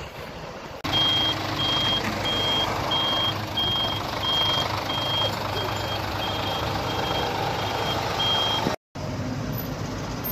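A heavy vehicle's reversing alarm beeping about every two-thirds of a second, a dozen times, over a running diesel engine and traffic hum. It is the sign of a vehicle backing up.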